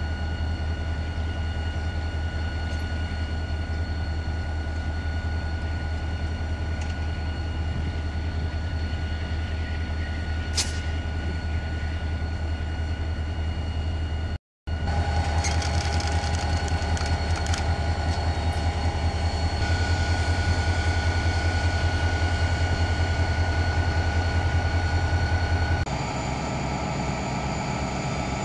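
Diesel freight locomotives running with a steady low engine rumble. About halfway in it gives way to a louder train passing at close range, with a few brief clicks from the moving cars.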